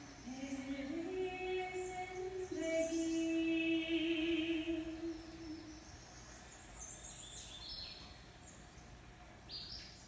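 A woman's voice sings an Urdu ghazal unaccompanied in long, slowly sliding held notes over a nature soundscape of chirping birds. The singing fades out about six seconds in, leaving only the birdsong.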